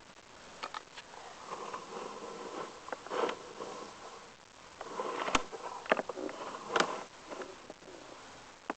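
Irregular knocks, clicks and scraping as a sewer inspection camera is pushed down the line, with the sharpest knocks about halfway through.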